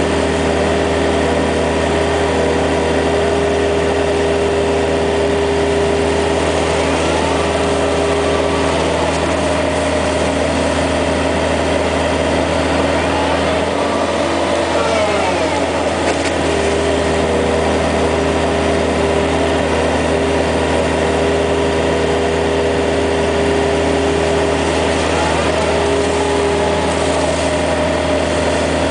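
Yanmar ViO55 mini excavator's diesel engine running steadily under the seat while the machine digs wet sand and swings to dump it. A steady tone in the engine note drops away for several seconds in the middle and comes back.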